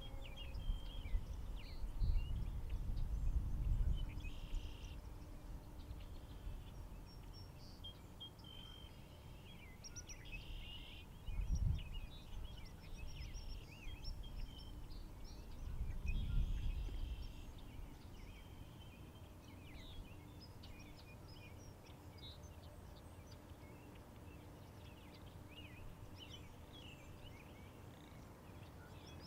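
Marsh birds calling and chirping throughout, many short calls overlapping. Low rumbles come three times: about two seconds in, near the middle, and a little past halfway.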